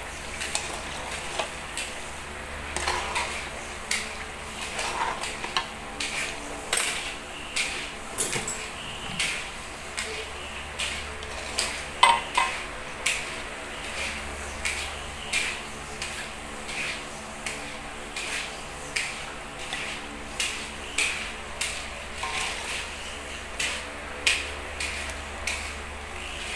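Metal spatula scraping and knocking against an aluminium wok about once or twice a second, turning bananas through hot oil and caramelizing sugar, over a steady sizzle of frying.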